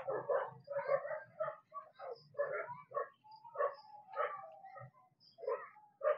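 A dog barking over and over, short barks about two a second.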